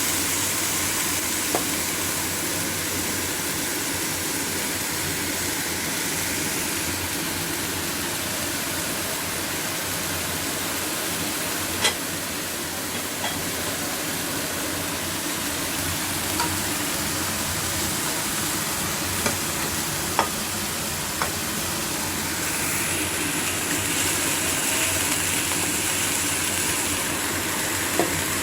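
Food sizzling in a hot wok as it is stir-fried, a steady hiss with a few sharp clicks of stirring now and then.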